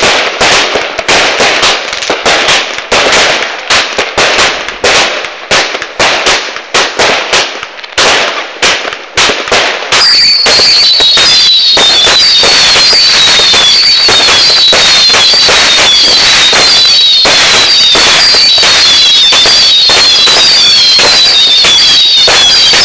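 Jorge "Super Show" 100-shot fireworks cake firing: sharp bangs of launches and bursts, about two or three a second. About ten seconds in it turns into a continuous loud crackle, with falling whistles repeating over it about twice a second.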